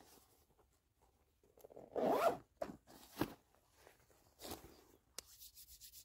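Backpack zipper pulled in a few short strokes, the loudest about two seconds in. Near the end, palms rubbed briskly together, about six strokes a second.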